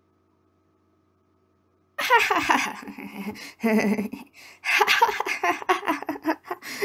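A person's voice laughing in a hyena-like way, in repeated bursts of rapid pulsing laughter, starting about two seconds in.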